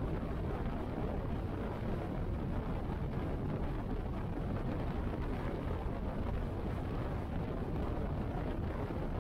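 Cruiser motorcycle at steady highway speed: the engine running evenly, mixed with wind noise on the microphone, with no change in level.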